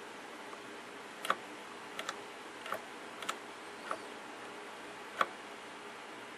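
Sharp clicks of a vintage tube tester's switches and knobs being set back, about eight in all, the loudest near the start and near the end, over a faint steady hum.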